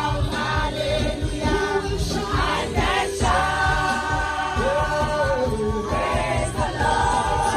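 A crowd of many voices singing together over music with a steady beat and heavy bass.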